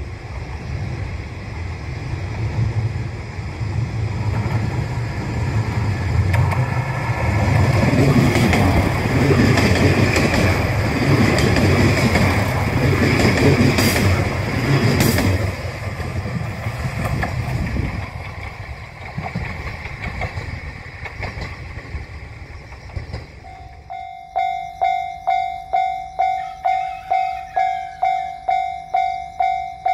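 KiHa diesel railcar passing the crossing: a low engine rumble and rail noise build up, peak with a couple of sharp wheel clicks, and fade away. Near the end the level crossing's warning bell starts ringing, about two dings a second.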